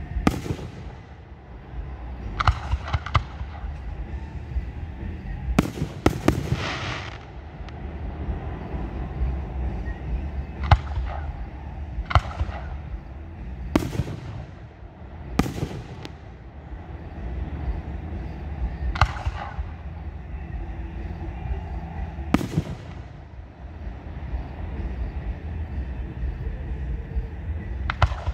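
Aerial fireworks shells bursting overhead: about a dozen sharp bangs a few seconds apart, some in quick pairs, over a steady low rumble.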